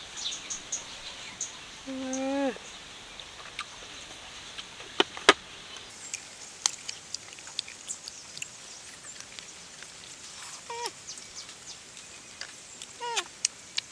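Sharp clicks and crackles of rambutans being handled, peeled and eaten, the loudest two about five seconds in. A few short animal calls falling in pitch come about two seconds in and twice near the end.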